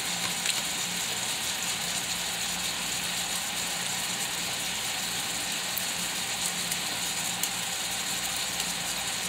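Strips of beef pepper steak frying in oil in a skillet: a steady sizzling hiss with a few scattered small pops.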